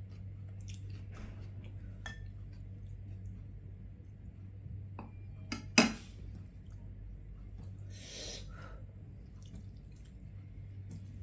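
Quiet eating sounds: small wet clicks and smacks of chewing a fish-and-rice meal, with a sharp click about six seconds in and a short breathy rush a little past eight seconds, over a steady low hum.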